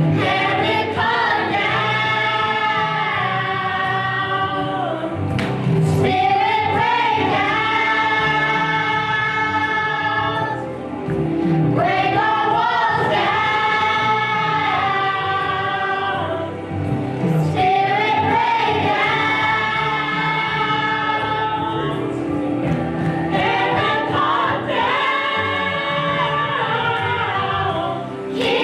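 Gospel choir singing long held notes, in phrases that break off about every five to six seconds.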